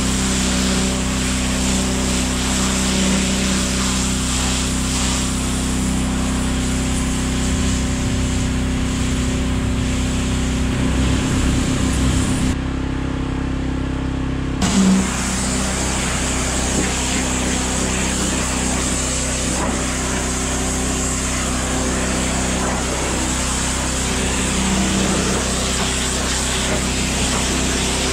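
Steam cleaner (steam jenny) running steadily, its spray wand hissing under pressure. The spray stops for about two seconds midway, then comes back on with a short burst.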